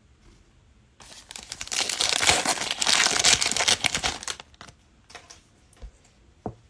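A trading card pack's wrapper crinkling and tearing as it is ripped open, for about three seconds, followed by a few faint clicks.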